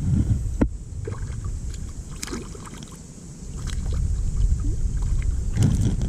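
Water splashing and sloshing around a wading angler playing a hooked fish, over a low wind rumble on the microphone, with a sharp click under a second in.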